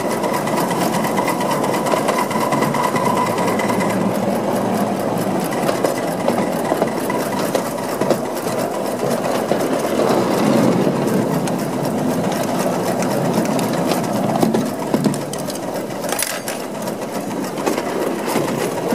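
5-inch gauge live-steam Krauss miniature locomotive running along its track, heard from the driver's seat as a fast, even clatter of wheels and running gear. A thin steady high tone fades out a few seconds in, and there is a short hiss near the end.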